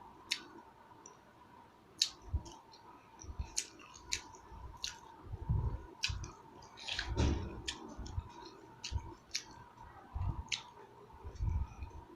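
Person chewing food close to the microphone, with irregular sharp wet mouth clicks and soft low thumps.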